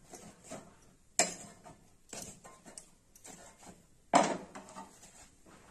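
Metal kitchen tongs clicking against a steel gas stove and pan while a phulka is turned over the open flame: a few sharp metallic knocks, the loudest about a second in and just after four seconds in.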